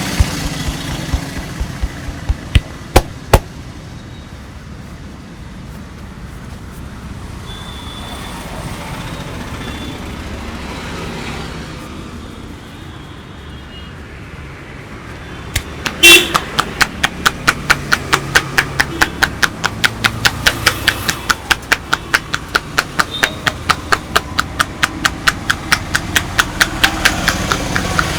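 Massage tapping by hand on a customer's back: a few sharp slaps about three seconds in, then one loud smack about halfway through, and after it quick, even slaps at about four a second. Steady street traffic noise runs underneath.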